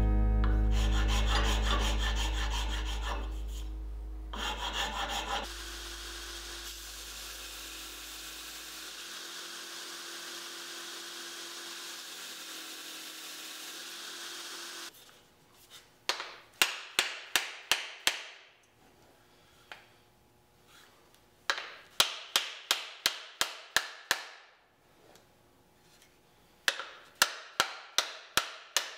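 Abrasive rubbing on a wooden hammer handle by hand, in three runs of quick back-and-forth strokes, about three or four a second, separated by short pauses. Before that comes a steady hum and hiss, with a loud low rumble fading out over the first several seconds.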